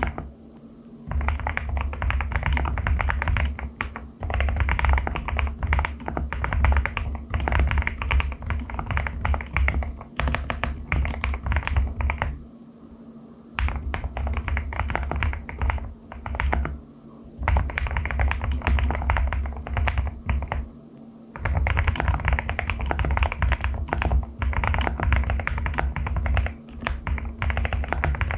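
Fast typing on a Qwertykeys QK75 75% custom mechanical keyboard with Haimu Crystal Blossom switches: runs of quick keystrokes lasting one to three seconds, broken by short pauses.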